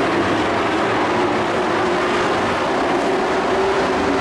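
A pack of dirt-track race trucks running at speed together: a loud, steady drone of many engines that never lets up.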